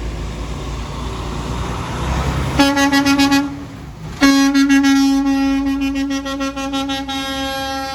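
Truck horn honking, one steady tone: a short blast about two and a half seconds in, then a long blast of about four seconds, after a few seconds of rushing traffic and engine noise.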